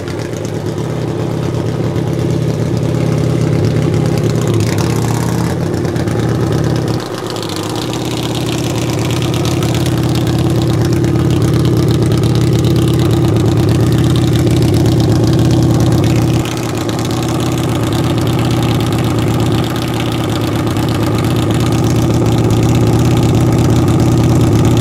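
Harley-Davidson VRXSE V-Rod Destroyer drag bike's V-twin engine idling steadily while staged at the start line, with short dips in level about seven and sixteen seconds in.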